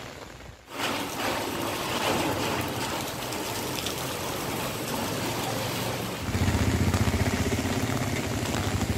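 Rushing floodwater, a steady loud wash of water noise. About six seconds in, a low rhythmic rumble joins it.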